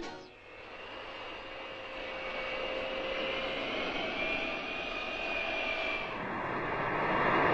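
Ilyushin Il-86 airliner's four turbofan engines running, a steady whine over rushing noise that grows louder toward the end.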